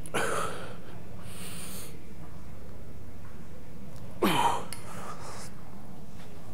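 A man's forceful breaths during loaded squats with a pair of dumbbells racked at his shoulders: three short, loud breaths, near the start, about a second and a half in, and just past four seconds in. A steady low hum runs underneath.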